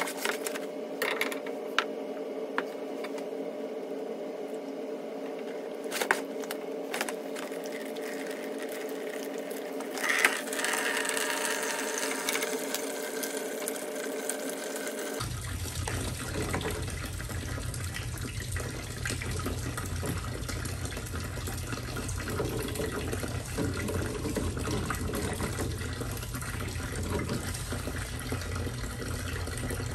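Water spraying from an open pipe fitting under mains pressure, a steady hiss, with several sharp metal clicks and knocks of pliers and wrench on the valve fittings in the first ten seconds. About halfway through the water sound abruptly becomes a fuller, lower rush.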